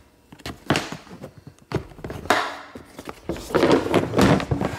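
Knocks and clunks of a hard plastic tool case being handled and tipped up onto its end on a wooden workbench. A few separate knocks come first, then a louder run of clunks near the end.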